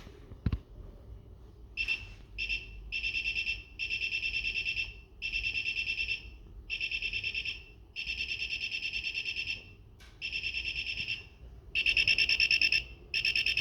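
Buzzer on an IR remote-control detector circuit sounding in repeated bursts of a high, rough, pulsing tone, each burst lasting as long as a remote button is held, which shows the circuit is picking up the remote's infrared signal. The bursts vary from brief to about a second and a half, and the last ones are the loudest.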